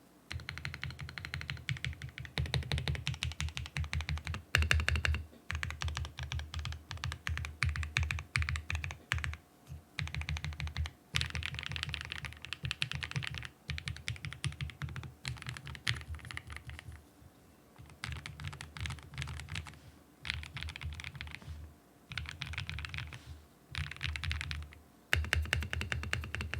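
Typing on a custom 65% mechanical keyboard (Mode SixtyFive with POM plate, stack mount, and Infinity Key Cow linear switches with POM stems, PBT keycaps), fast bursts of keystrokes with a deep thock, broken by brief pauses every few seconds.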